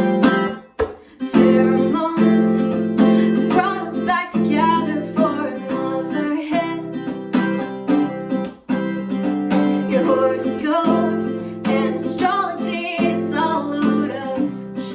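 Acoustic guitar strummed in steady chords, with a voice singing over it.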